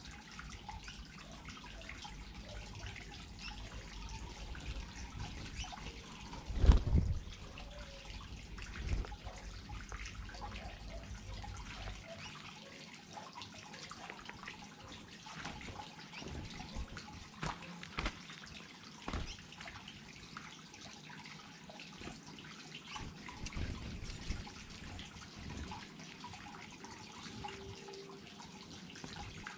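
Small garden waterfall trickling and splashing steadily, with scattered drips and small clicks. A sudden thump about seven seconds in is the loudest sound, with a smaller one about two seconds later.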